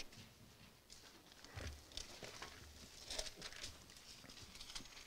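Faint rustling of thin Bible pages being leafed through, with scattered soft paper flicks and a few dull knocks of handling on the pulpit about a second and a half in.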